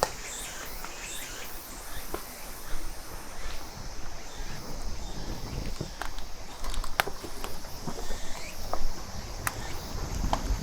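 Footsteps with scattered sharp clicks and knocks, over a steady background of insects chirring.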